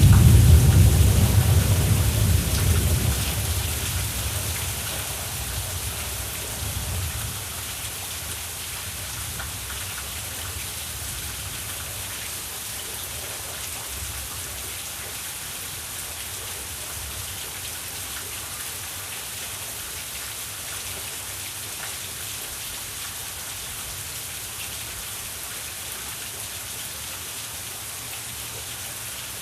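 Thunder rumbles at the start and dies away over the first several seconds, over steady rain that keeps falling after it.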